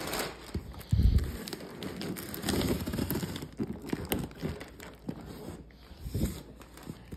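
Clear plastic wrap crinkling as it is cut with scissors and pulled on a large cardboard box, with irregular clicks and knocks on the cardboard and a heavy thump about a second in.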